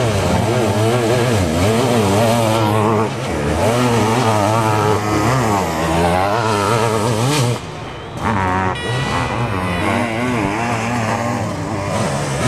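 Sidecar motocross outfits' engines revving hard, their pitch rising and falling with the throttle as they race through corners and climbs. The sound drops off briefly about three seconds in and again about eight seconds in.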